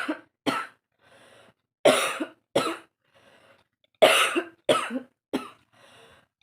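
A woman coughing hard and deliberately: seven loud coughs in groups of two, two and three, with short breaths drawn in between. She is coughing hard enough that her throat and stomach hurt.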